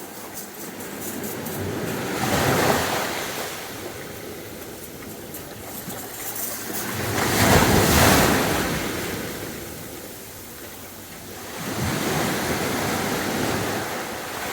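Sea waves breaking on a beach: three surges of surf, each swelling and falling away in a hiss. The loudest comes about halfway through.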